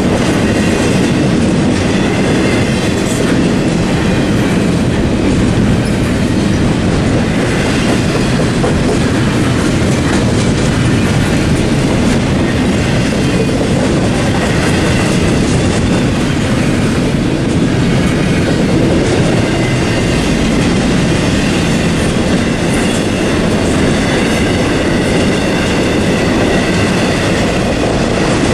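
Double-stack container cars of a CSX intermodal freight train rolling past at steady speed: a continuous loud rumble with the clatter of the wheels on the rails.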